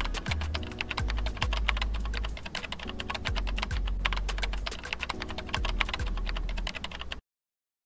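Rapid keyboard typing clicks, many a second, as a typing sound effect over low bass notes of music; both cut off suddenly about seven seconds in.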